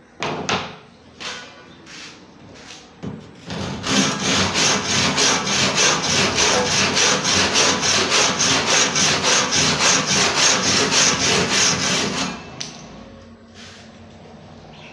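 Freshly sharpened hand saw cutting a piece of particleboard. A few short starting strokes come first, then about eight seconds of fast, even back-and-forth sawing that stops shortly before the end.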